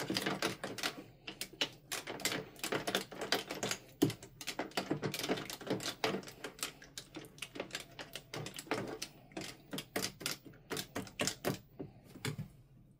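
A spoon stirring and scraping through a wet, bubbly slime mixture in a tray: a fast, irregular run of clicks, taps and wet squelches that stops near the end.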